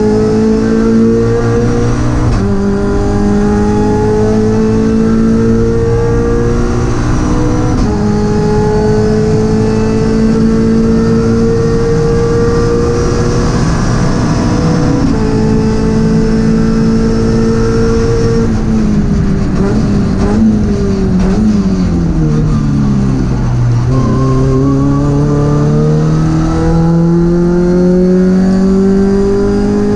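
Toyota GT86 CS-Cup race car's flat-four boxer engine heard from inside the cockpit at full throttle, its pitch climbing and then dropping sharply three times as the sequential gearbox is shifted up. After about 18 seconds the revs fall away in steps as the car slows, then the engine pulls hard again, pitch rising steadily to the end.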